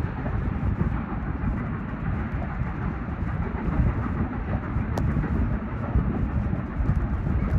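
Steam-hauled passenger train running along the line, heard from a carriage window: a steady rumble of the coaches' wheels on the rails.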